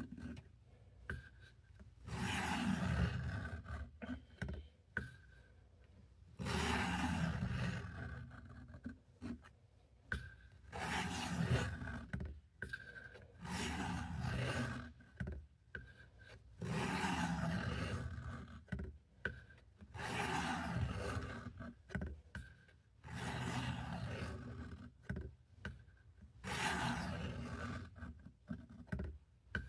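Steel knife blade drawn again and again across the coarse stone of a Work Sharp guided sharpener, a scraping rub in about ten long strokes of a second or two each, with short pauses and small clicks between.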